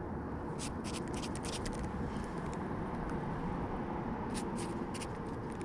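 Shimano Sahara 2500 spinning reel being cranked while jigging, giving two brief runs of quick clicks over a steady low background rumble.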